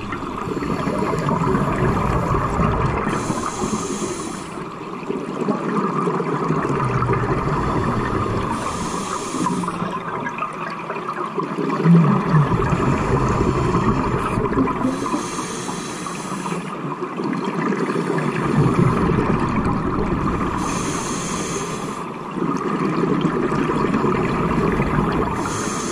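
A scuba diver's breathing through a demand regulator, heard through an underwater camera housing: a short hiss on each inhale alternating with a low burbling rush of exhaled bubbles, about every six seconds.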